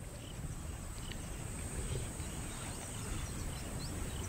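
Bush ambience: a steady high insect drone with scattered faint chirps over a low, even rumble.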